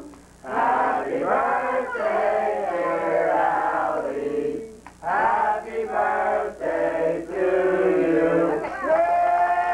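A recorded song with singing voices, ending on a long held note.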